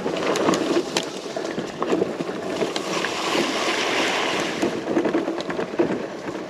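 Fat tyres of an electric bike rolling over a rough dirt and gravel track, with many small crunching clicks and rattles and a rushing noise that swells about three seconds in.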